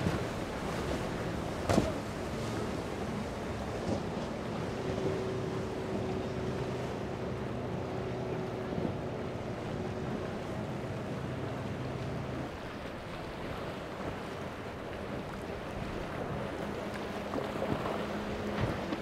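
Powerboat engines droning as the boats run through choppy inlet waves, over a steady wash of surf, spray and wind on the microphone. One sharp crack about two seconds in is the loudest moment.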